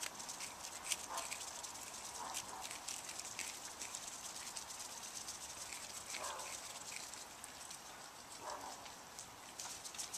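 Mute swan grazing: quick runs of crisp tearing clicks as its bill plucks and crops short grass, thickest in the first half and again near the end.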